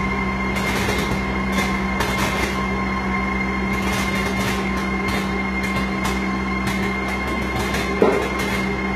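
LD60 colour sorter for fresh leafy vegetables running: a steady machine hum with a thin high whine, overlaid by quick irregular clicks and puffs typical of a colour sorter's air ejectors rejecting pieces. One sharp knock comes about eight seconds in.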